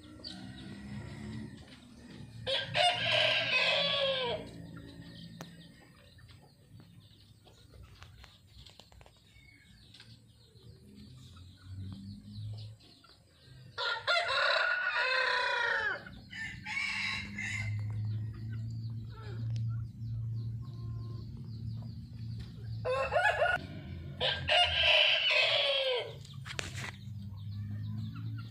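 A rooster crowing three times, about ten seconds apart, each crow lasting about two seconds, with a low steady hum underneath.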